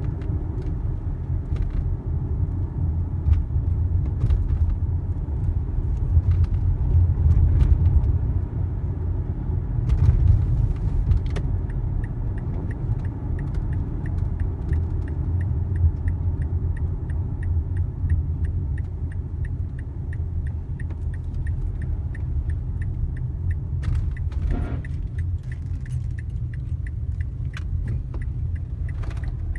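Steady road and engine rumble inside a moving car's cabin. A fast, even clicking starts about eleven seconds in and keeps going.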